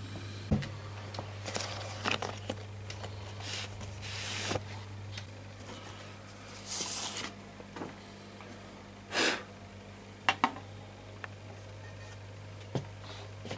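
Handling noises of a vinyl record being taken out and set up on a DJ turntable: scattered rustles of the record sleeve, a longer sliding rustle about seven seconds in, and sharp clicks of the turntable's controls near the end. A steady low hum runs underneath.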